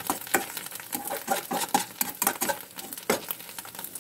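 Steel spatula scraping and knocking against a kadhai while stirring mashed ripe pumpkin frying in desi ghee, with irregular clicks and a light sizzle. One sharper knock comes about three seconds in.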